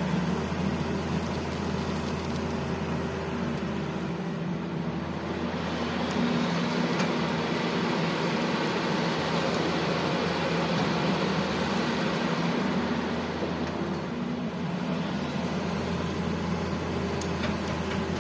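Heavy diesel engines running at a loading site: a steady low hum that swells louder and harsher for several seconds in the middle, then settles back.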